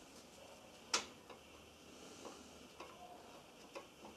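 Sharp metallic click about a second in, then a few faint clicks and taps, as a Honda B18 connecting-rod cap is worked loose and lifted off its studs by hand.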